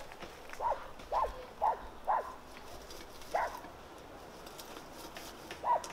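A dog yapping: short, high yaps, four in quick succession, then two more spaced out, one midway and one near the end.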